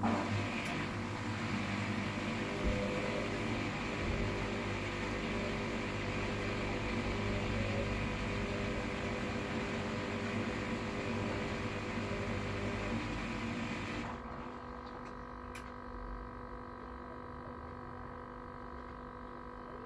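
Hoover washer-dryer running: a steady mechanical rushing noise over a hum. About 14 seconds in the rushing noise stops abruptly, leaving a quieter steady hum.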